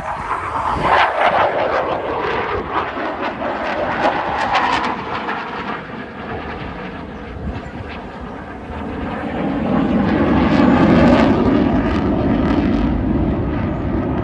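Eurofighter Typhoon fighter jet's twin turbofan engines in a display pass, a dense jet noise that swells and fades as it manoeuvres. It is loudest and deepest about ten to twelve seconds in.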